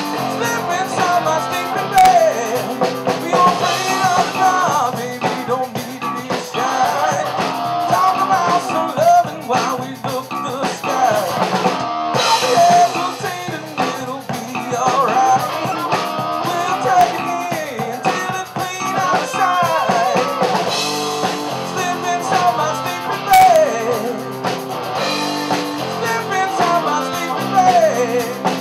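Live rock band playing through a PA system: electric guitar over a drum kit, with bending, sliding pitches.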